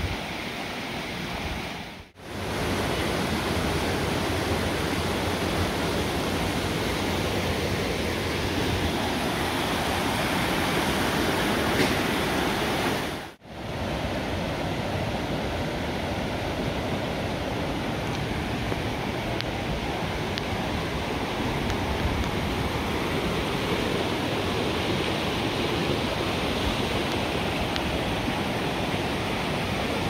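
Rushing water of a rocky mountain brook tumbling over granite ledges and boulders, a steady roar. It drops out for a moment twice, about two seconds in and again around thirteen seconds.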